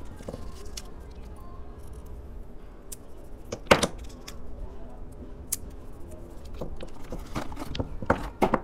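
Small gel polish bottles being handled on a table, knocking and clicking against the tabletop and each other. There is one sharp click about four seconds in and a quick run of clicks near the end as the bottles are moved around.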